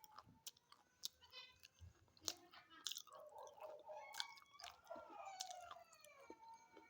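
Close-up crunching and chewing of hard chalky sticks such as slate pencils: a string of sharp, separate crisp cracks as pieces are bitten and ground between the teeth, quiet overall.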